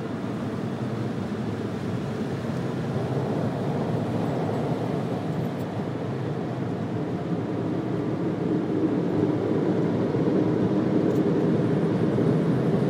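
Car wash dryer blowers rushing steadily, heard from inside the car as they blow the water drops off the windshield; the sound grows slightly louder toward the end.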